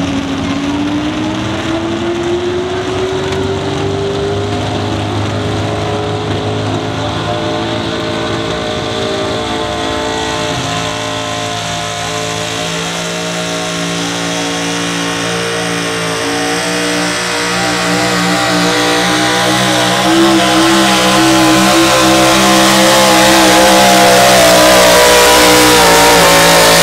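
Super stock 4x4 pulling truck's engine running hard at high revs while dragging the weight sled, its pitch climbing over the first few seconds and then held. It grows louder and harsher over the last third.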